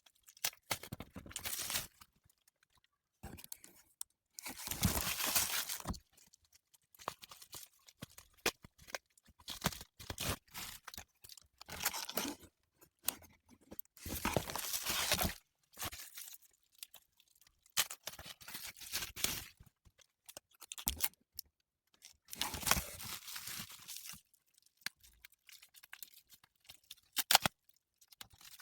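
Packaging being torn open and handled by hand: repeated bursts of tearing and crinkling, a second or two each, with small clicks and taps between them and one sharp click near the end.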